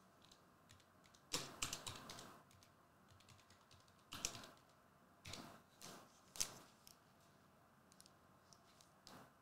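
Trading cards and foil card packs being handled on a table: short bursts of crinkling and clicking, with a longer burst about a second in and shorter ones after it.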